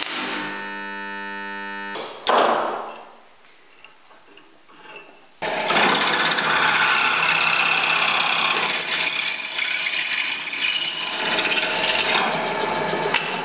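A stick welder's arc buzzes steadily and stops about two seconds in, followed by a sharp metallic knock. From about five and a half seconds in, a drill press bores a twist drill through a welded steel ear with a loud, steady, gritty cutting noise that begins to fade just at the end.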